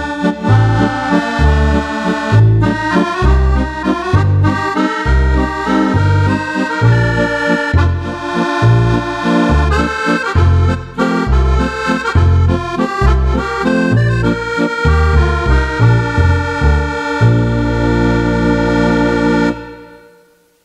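Roland FR-8x digital accordion playing a lively tune: a treble melody over a regular bass-and-chord accompaniment. It ends on a long held chord that fades out near the end.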